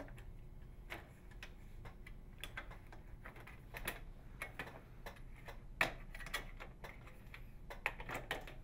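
Irregular light clicks and snaps as a putty knife and small flathead screwdriver pry the plastic retaining clips of a microwave door's inner trim loose, one after another.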